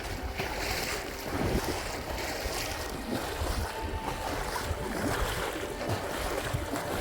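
Wind buffeting the microphone over splashing sea water, with irregular splashes throughout.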